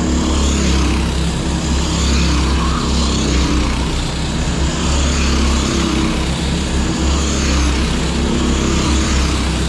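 Kart engines running as karts lap the track: a loud, steady engine noise with a heavy low rumble.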